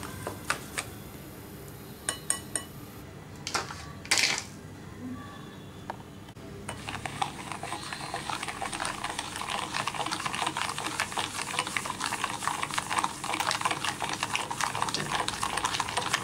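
Wire whisk beating an egg-and-milk mixture in a ceramic bowl. At first there are a few scattered clinks, then from about seven seconds in a fast, steady clatter of wires against the bowl.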